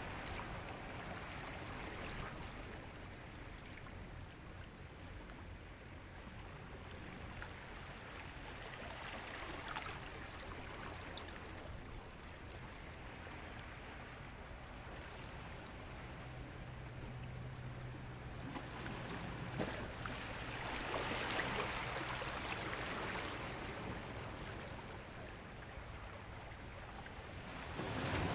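Ocean waves washing in, a steady rush of surf that swells and ebbs every several seconds.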